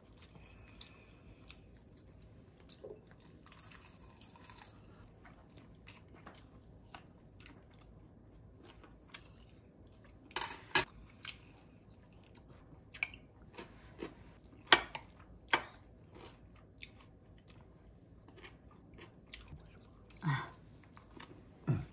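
Quiet chewing at a meal, with scattered clicks of metal spoons and chopsticks against ceramic bowls; a few sharper clinks stand out around the middle.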